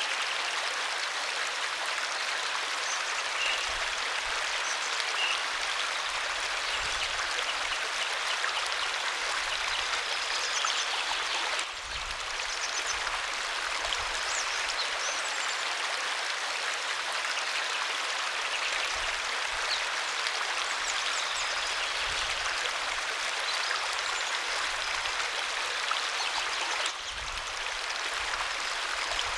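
Waterfall: a steady, dense rush of falling water, briefly dipping in level twice.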